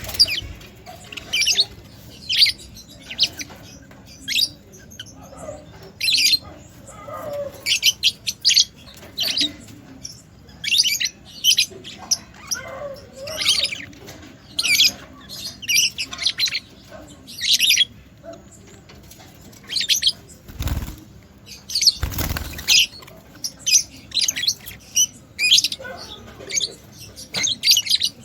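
Budgerigars chirping over and over, short high chirps one or two a second. Two short rustling bursts come about three-quarters of the way through.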